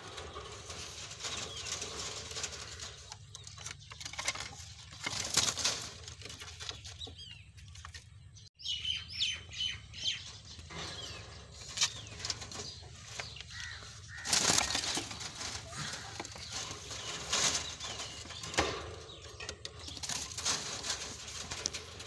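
Green ringneck parakeets in a wooden box, wings flapping and rustling in several irregular bursts, with a few short high chirps near the middle.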